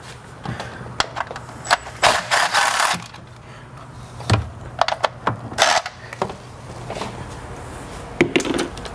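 Cordless ratchet running in two short bursts to spin 10 mm bolts out of an engine's wiring tray. Between the bursts come sharp clicks and clinks of the socket and bolts against metal.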